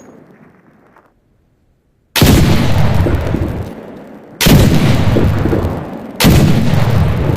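Blunderbuss flintlock pistol fired three times, about two seconds apart. Each shot is a sharp boom with a long rumbling tail that the next shot cuts into, after a second of dead silence.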